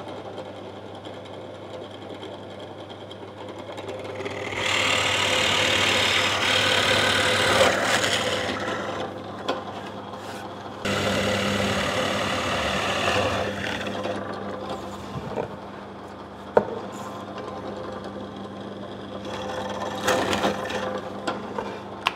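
Bench drill press running with a steady motor hum while its bit bores 20 mm holes through a sapele board. The cutting grows louder in bouts: about four seconds in, again about eleven seconds in, and briefly near the end.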